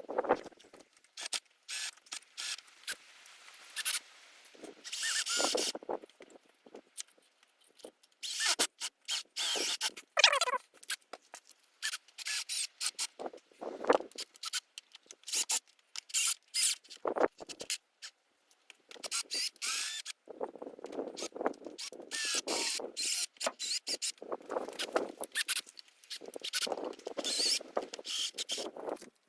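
Screws being driven through iron mounting brackets into an anvil's wooden stump, squealing in stretches as they turn and bite, amid clicks and clatter of handled tools and hardware.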